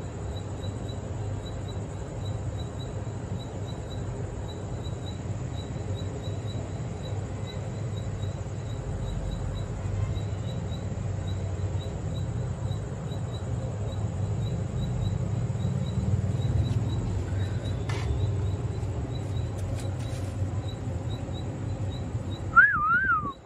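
Outdoor night ambience: a steady low rumble with a faint, even high chirp repeating a few times a second. Near the end, a short, loud, wavering high tone rises and falls.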